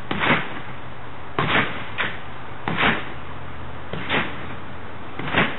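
Trampoline mat and springs thumping with each bounce as a jumper lands and rebounds, about once every 1.3 seconds, over a steady hiss of falling rain.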